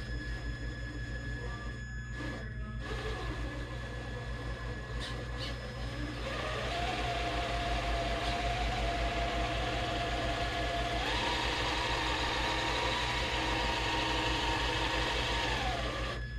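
Traxxas TRX4 crawler's electric motor and gearbox whining under load on a steep, slick quartz slope. The whine starts about a third of the way in, steps up in pitch partway through, then drops away near the end, over a steady low hum.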